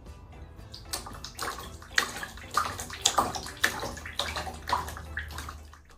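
Water splashing and sloshing, as in a bathtub, in a quick run of irregular splashes over a steady low hum.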